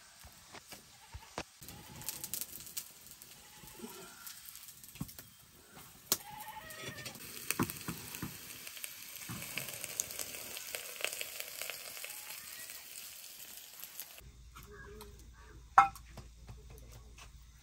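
Flatbread cooking on a black iron griddle over a wood-fired mud stove: a steady sizzling hiss with scattered small crackles from the fire. Near the end a metal spoon strikes a steel bowl with one sharp clink.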